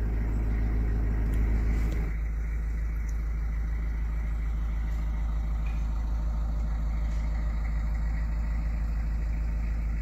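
Narrowboat diesel engine running steadily at low revs. A louder rushing layer over it stops about two seconds in.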